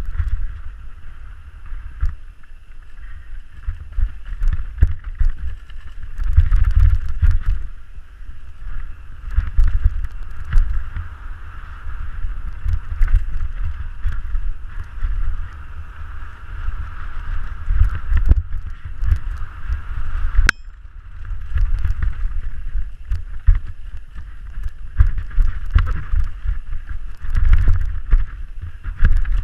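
Canyon Strive full-suspension mountain bike descending a dusty dirt trail at speed, heard from an action camera on the rider: gusty wind rumble on the microphone over the hiss of tyres rolling on dirt, with frequent sharp clicks and clatters from the bike over bumps.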